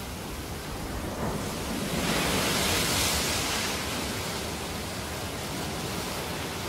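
Ocean surf: a steady rushing wash of waves that swells to its loudest about two to three seconds in, then settles.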